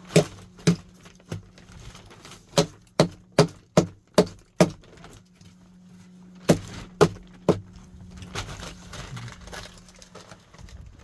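Hammer blows on wood, as in nailing boards: three strikes, then a run of six at about two and a half a second, then three more after a pause.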